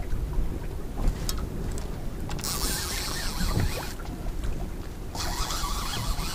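Wind buffeting the microphone in the open air at sea, a steady low rumble, with two spells of hiss about two and a half seconds in and again about five seconds in.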